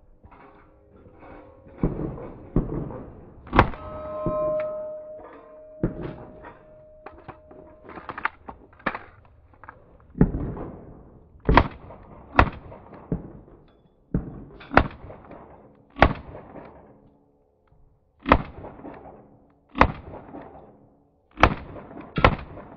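Pistol shots during a practical shooting stage, about fifteen in all, one every second or two in slowed-down footage, each a sharp crack with a ringing tail.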